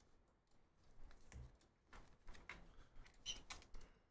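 Near silence in a small room, broken by faint scattered clicks and light handling noises.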